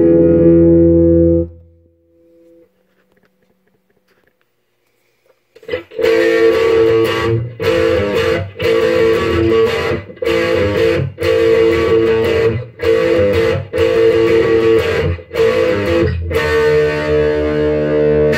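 Electric guitar played through a Marshall JCM800 50 W tube amp with EL34 power tubes. A loud held chord rings out and dies away. After a pause of a few seconds comes a run of repeated chords, about one a second, with brief breaks between them. This is a play-test of the amp's newly installed post-phase-inverter master volume.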